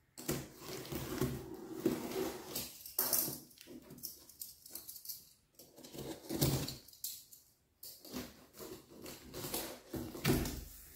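A blade slitting the clear packing tape along the seams of a cardboard shipping box, with scraping and rustling of tape and cardboard in irregular strokes.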